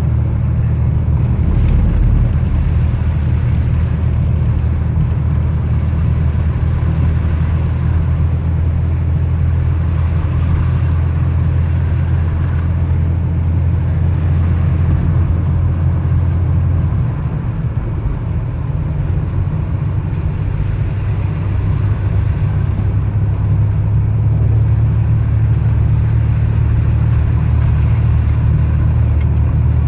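Car driving slowly, heard from inside the cabin: a steady low engine and road drone. About halfway through the drone dips and changes pitch slightly, then holds steady again.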